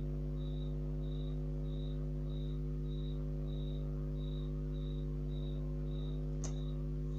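A cricket chirping in short, evenly spaced chirps, a little under two a second, over a steady low electrical hum. A single click near the end.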